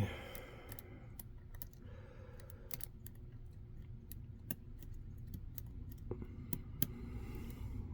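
Faint, irregular small metallic clicks of a lock pick working the pins of a six-pin CFG 3-star euro cylinder lock held under a pry-bar tension tool, as pins are lifted and set.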